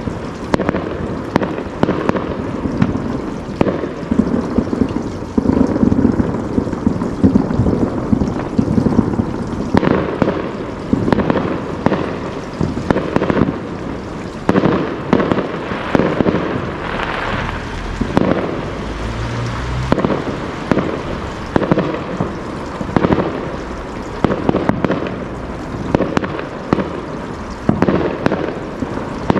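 Fireworks display: a continuous barrage of bangs and crackling bursts, several a second, heaviest from about five to nine seconds in.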